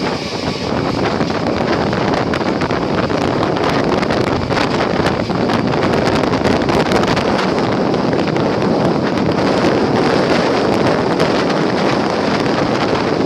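Moving Indian Railways passenger train heard from an open window or door: a steady rushing rumble of the coaches running along the track, with wind buffeting the microphone and many small clicks and rattles throughout.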